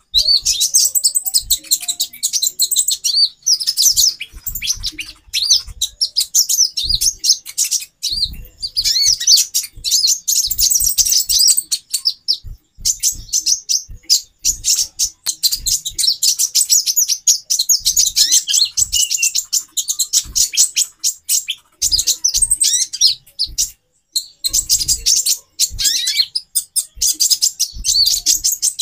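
Female konin (kolibri ninja) sunbirds chittering in fast, high-pitched chirps, layered into a dense, nearly unbroken chorus with brief pauses. This is the female call used as a lure to stir male konin into arousal and song.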